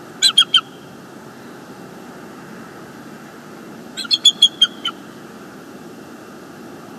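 Bald eagle calling: a quick burst of three sharp, high, staccato notes, then about three seconds later a longer series of about six. A steady low background rumble runs underneath.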